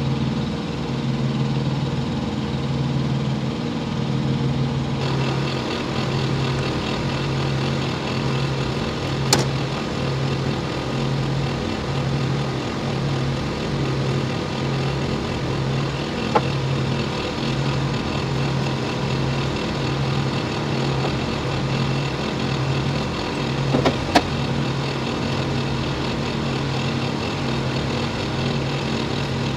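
Diesel semi-truck engine idling, a steady low drone that pulses about once a second, with a few sharp clicks.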